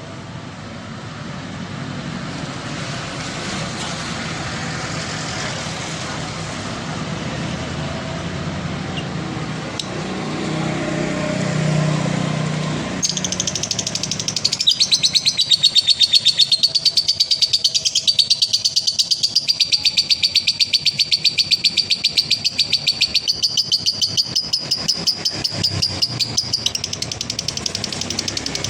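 Steady low background noise. About halfway in it gives way to a male lovebird's long, rapid, high-pitched chattering trill (the 'ngekek' song), which runs until near the end.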